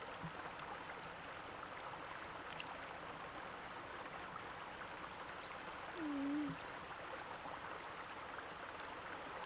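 Steady trickle of creek water, with a brief murmured voice about six seconds in.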